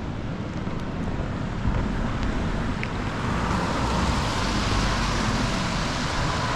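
Street traffic: a car goes by, its noise growing louder from about halfway through, with wind rumbling on the microphone.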